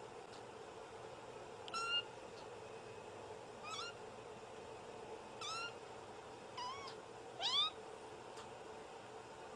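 White Scottish Fold kitten mewing: five short, high-pitched mews a second or two apart, the loudest near the end.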